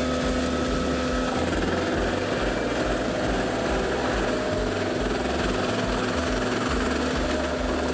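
Bandit Beast 4680 tracked wood grinder running as it grinds logs and stump pieces: a steady engine and machine hum with an uneven low throb beneath.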